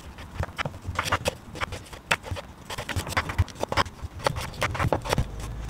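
Chef's knife cutting carrot into julienne strips on a wooden cutting board: quick, uneven knocks of the blade through the carrot onto the wood, several a second.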